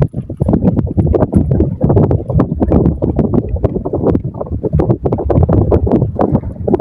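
Strong wind buffeting the microphone: a loud low rumble that rises and falls in quick gusts.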